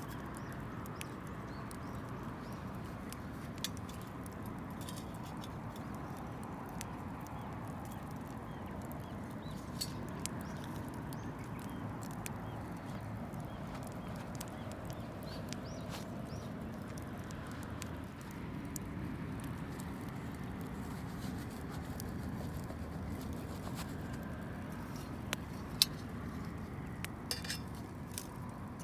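Wood campfire burning with a steady low rush and sparse sharp crackles, with a few light clinks. The crackles come more often near the end, one sharper than the rest.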